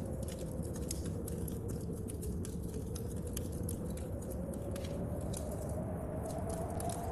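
Wood fire crackling in a stove with frequent sharp pops, layered over the steady rush of storm wind and rain and a low wind howl that slowly wavers in pitch.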